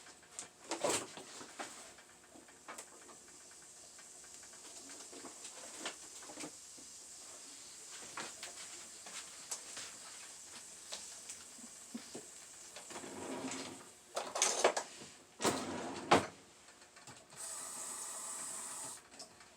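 Leftover water hissing faintly and steadily in a frying pan heating on the stove, with a few kitchen clatters about two-thirds of the way through.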